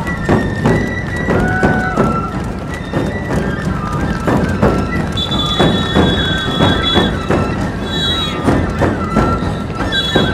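Nebuta festival hayashi music: taiko drums beating steadily while bamboo flutes play a melody above them.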